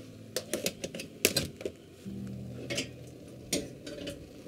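A quick irregular run of sharp clicks and light metallic knocks at a gas stove, followed by a few single knocks as a stainless-steel kettle is handled on the burner grate. A steady low hum runs underneath.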